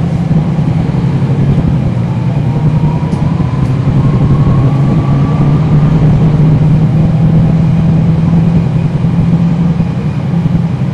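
On board a NABI 40-SFW transit bus: the Cummins ISL9 diesel engine's steady drone, with the ZF Ecolife six-speed automatic transmission's thin whistle rising slowly in pitch from about two seconds in until about six seconds in.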